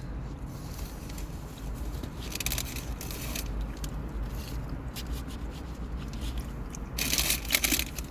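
Fast-food paper and packaging being handled: scattered scraping and crackling rustles, with a louder flurry of crinkling about seven seconds in.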